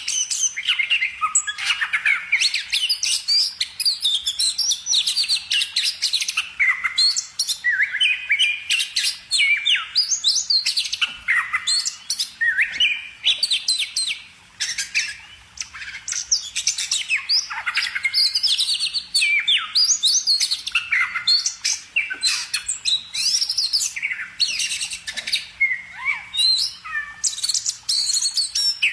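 Bird song: a fast, varied, continuous run of chirps, trills and sliding whistles, with one short lull about halfway through.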